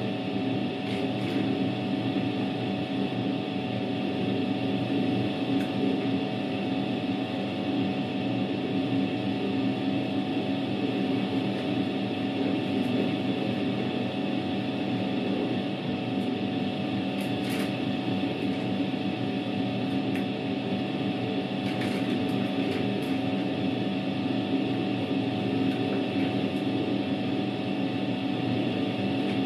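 Światowit M4 impeller washing machine washing a load: its EDA SED-110-4 motor hums steadily while the impeller churns the soapy water and laundry, with a few faint ticks now and then.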